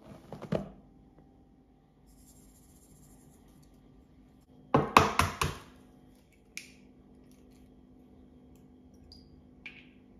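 Cookware clattering: a quick run of four or five sharp knocks about five seconds in, with a shorter clatter at the start and a couple of lighter clicks later.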